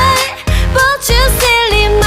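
Background pop music: a sung melody with bending pitch over a steady bass beat.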